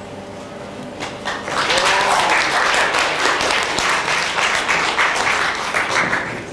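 Audience clapping, starting about a second and a half in and breaking off just before the end.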